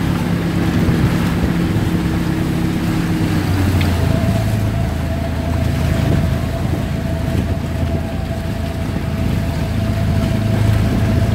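Boat engine running steadily with a low hum; about three and a half seconds in its note shifts and a thin, higher steady whine joins it.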